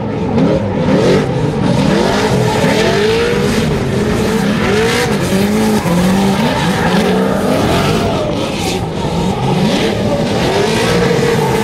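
Two drift cars sliding in tandem, their engines revving up and down over and over while the tyres squeal and skid continuously.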